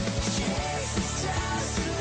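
Pop-rock band music with drums, guitars and sung or held melodic lines.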